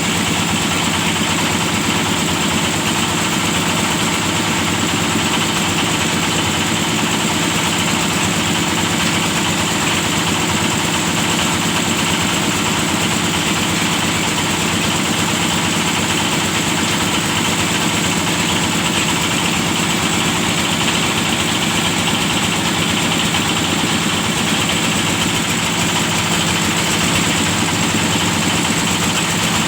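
Engine of a hydraulic well-drilling rig running steadily at an even speed, with no change in pitch or level.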